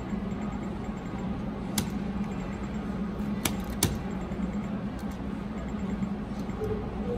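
Steady casino background hum with a low drone, broken by a few short sharp clicks from the video poker machine as hands are dealt and drawn, two of them close together about three and a half seconds in.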